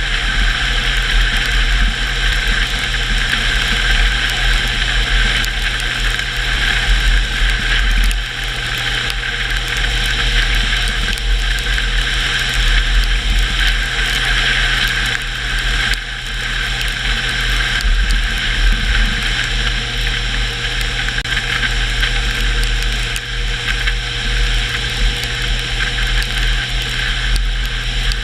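Car driving at a steady pace: engine running under a deep rumble of road noise, with a steady high whine over it. The level eases off briefly about eight and again about sixteen seconds in, as if the throttle is lifted.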